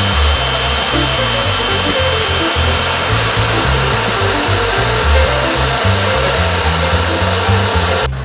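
A vacuum cleaner runs steadily with an even whooshing whir and a few steady high whines, starting and cutting off abruptly, over background music with a bass line.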